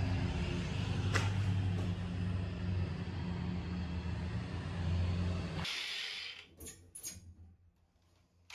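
A steady low engine drone, like a vehicle or machine idling. About two-thirds in it cuts off, leaving a few faint clicks and then near silence.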